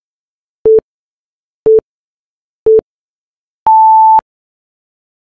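Electronic countdown timer beeps: three short beeps a second apart, then one longer, higher beep as the timer reaches zero, signalling that time is up.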